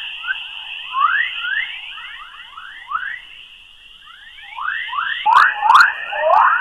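Earth's 'chorus' radio waves from the magnetosphere, converted to audio: a stream of quick rising chirps like birdsong over a steady high tone, with a few sharp clicks about five to six seconds in.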